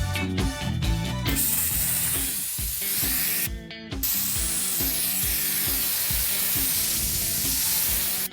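Loud, steady hissing spray over background music. The hiss starts about a second in and breaks off briefly near the middle.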